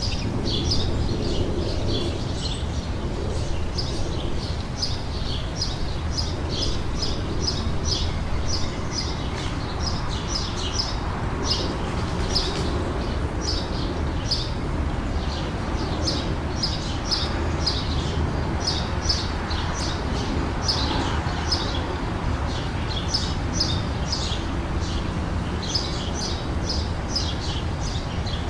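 Songbirds chirping in quick runs of short, high notes, with a steady low rumble underneath.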